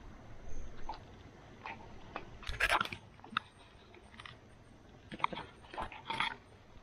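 Irregular crunching and crackling of dry straw and twigs underfoot and under the tyres as a bicycle is walked along a dirt path.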